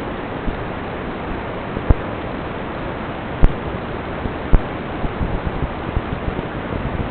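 Steady hiss of noise on an FPV drone racing flight recording, with sharp pops about two, three and a half and four and a half seconds in.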